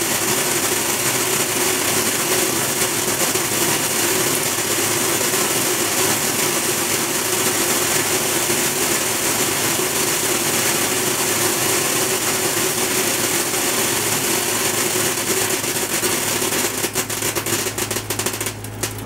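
Optical colour sorter running on gum arabic granules: a steady machine hum under a dense hiss and rattle of granules pouring down its chutes into plastic trays. Near the end the hiss breaks up into separate clicks and dies away as the flow stops.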